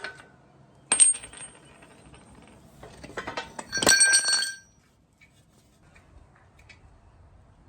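Metal clinking: a sharp strike that rings on briefly about a second in, then a louder clatter of ringing metal pieces from about three to four and a half seconds in, like tools or small parts being dropped or set down.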